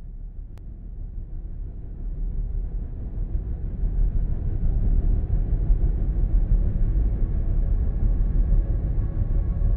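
Intro of an ambient house music track: a low rumbling drone swelling up over the first few seconds, with steady held tones coming in near the end.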